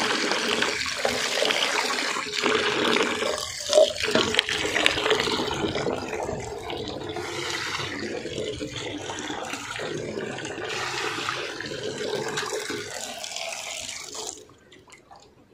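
Water running from an outdoor tap and splashing into a plastic mug, stopping about a second before the end.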